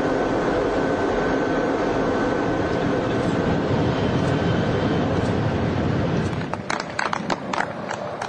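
Steady rushing running noise of the TGV V150 record train at high speed, with a thin steady tone over it. About six and a half seconds in the rushing eases and a quick run of sharp knocks follows.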